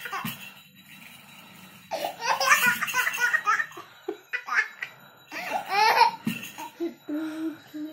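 Toddler laughing in fits: a quiet start, then a burst of giggling laughter about two seconds in and more bursts around four and six seconds.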